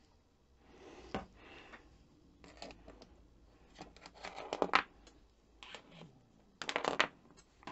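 A metal model-railway check rail scraping and clicking against the track's sleepers and fittings as it is worked into place by hand. The sound comes in several short bursts of scrapes and ticks, the loudest a little under 5 seconds in and again about 7 seconds in.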